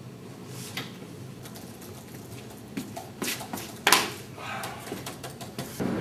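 Scattered knocks and clicks of things being handled, the loudest about four seconds in, over faint room noise.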